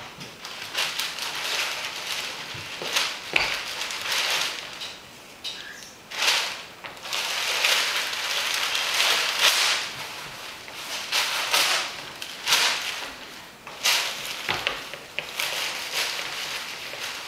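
A large crinkly sheet crumpled and rustled by hand, in irregular crackling bursts with short pauses between them.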